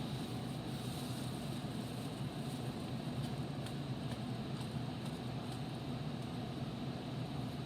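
A steady low hum, with a few faint light clicks in the middle.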